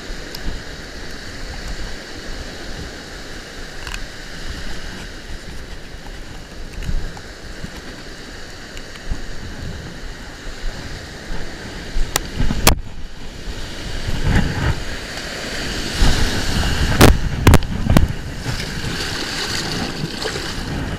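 Ocean surf breaking and washing up a sand beach, with wind on the microphone. In the second half come a few sharp clicks and knocks and some louder rushes of sound.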